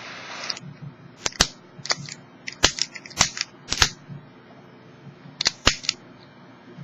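Butane jet torch lighter's flame hissing steadily, cut off suddenly about half a second in. It is followed by a series of sharp clicks, mostly in quick pairs, as the lighter is worked and handled.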